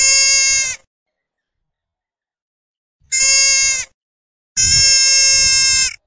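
Three bleating animal calls, each held on one steady pitch, the last one the longest, with dead silence between them.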